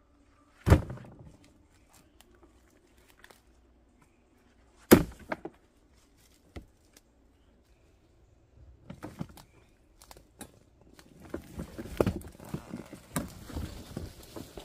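Firewood rounds thudding into a wheelbarrow, two heavy thumps about four seconds apart, the second followed by a couple of lighter knocks. From about eight seconds in, rustling and crunching footsteps move through the leafy undergrowth.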